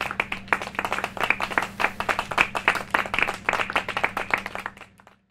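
A small group of people clapping their hands in applause, many overlapping claps, dying away near the end.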